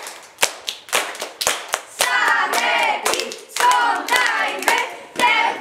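A group of children clapping their hands in a steady rhythm, about two claps a second, with their voices singing together over the claps from about two seconds in.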